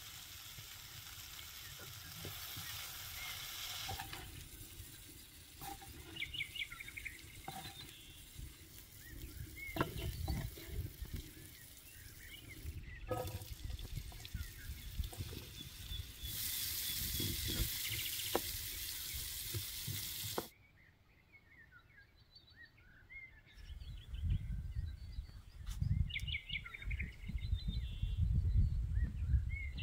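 Vegetables sizzling in hot oil in a black iron frying pan, first chopped green bell peppers, then sliced onions; a louder sizzle starts about halfway through as the onions go into the oil and cuts off suddenly a few seconds later. Near the end come low knocks of a knife slicing tomatoes on a wooden board, with birds chirping now and then.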